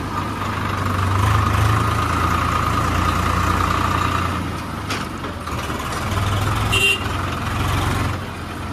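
Tractor diesel engine running as the tractor drives slowly: a steady low engine hum under a steady higher whine, with one short high-pitched tone about seven seconds in.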